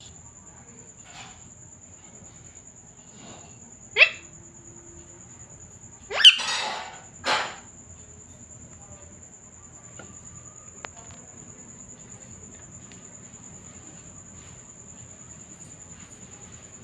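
Rose-ringed parakeet calling: a quick sharply rising squawk about four seconds in, then a loud rasping screech about two seconds later and a shorter squawk right after, with a few faint chirps in between. A steady high-pitched whine runs underneath throughout.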